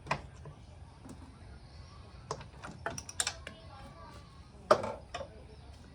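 Scattered sharp clicks and knocks from hand tools and small metal parts being handled during motorcycle repair work, a cluster in the middle and the loudest knock near the end, over a low steady background hum.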